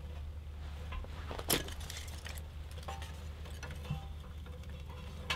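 Light metallic clicks and knocks from hands working in a small steel woodstove's firebox, with one sharper click about a second and a half in, over a steady low hum.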